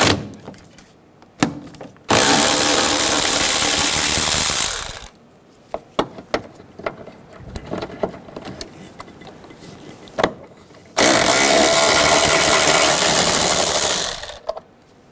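Cordless power tool spinning a 10 mm socket to back out two bolts, in two steady runs of about three seconds each. Small clicks and knocks of the socket and parts come in between.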